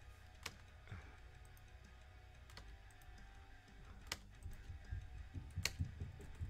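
Four sharp computer mouse clicks, about a second and a half apart.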